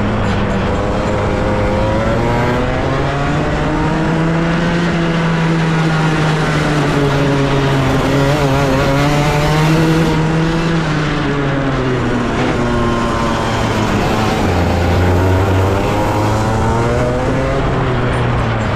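Pro Kart 125cc racing kart engine heard from the driver's seat, running under load. Its note climbs over the first few seconds as the kart accelerates out of a corner, holds high along the straight, and drops away about eleven seconds in as the kart slows for the next turn. It climbs again near the end.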